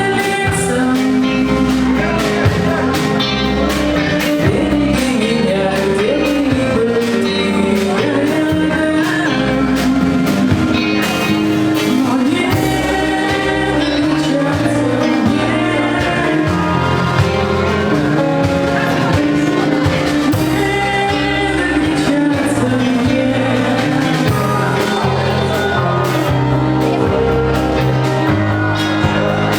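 Folk-rock band playing live, with a sung vocal melody over a full band and steady drum beats.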